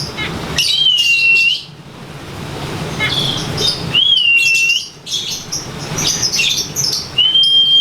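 Lovebird's ngekek song: long runs of rapid, shrill chattering. Clear whistled notes come in twice, and a long steady whistle starts near the end.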